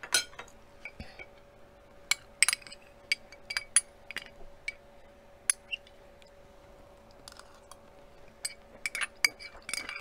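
Metal fork and spoon clinking and scraping against a ceramic plate while eating, in irregular single clinks that come faster near the end.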